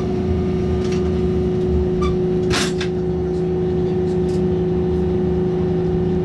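JR Shikoku 8000 series electric train running at a steady speed, heard inside the passenger cabin as a constant rumble with a steady hum. A short rushing noise comes about two and a half seconds in.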